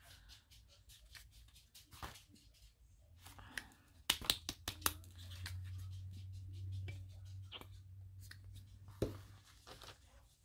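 Scattered small clicks and taps from handling paint bottles and brushes on a craft table, loudest in a quick cluster about four seconds in. A low hum runs underneath from about three seconds in until about nine seconds in.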